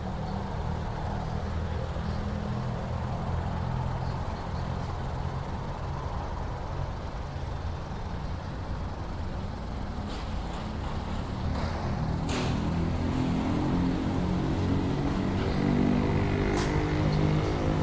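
Motor vehicle engine running steadily at low revs, with a second engine sound joining about two-thirds of the way through and the whole growing louder; a few brief clicks.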